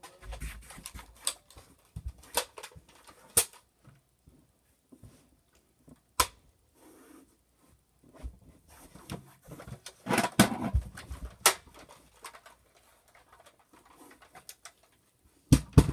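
Scattered clicks, knocks and thuds of objects being handled and moved, with a louder cluster of knocks about ten seconds in and two sharp clicks near the end.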